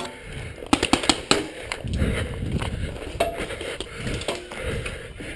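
Paintball marker and gear handled on the move: a cluster of sharp clicks and cracks in the first second and a half, then a low rumbling handling noise with further scattered clicks.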